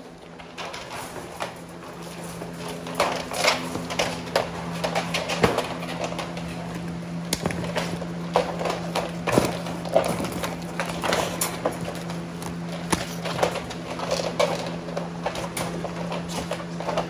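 Irregular clicks, knocks and rattles from pit bulls moving about in wire kennel crates on a wooden floor, over a steady low hum.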